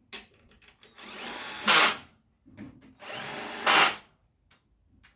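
Cordless drill-driver running in the screws of a scooter's transmission cover. Twice, it runs steadily for about a second and ends in a short, louder burst. A third run starts at the very end.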